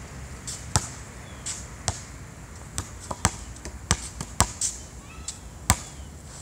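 A basketball bouncing on a hard outdoor court: several sharp bounces at uneven intervals.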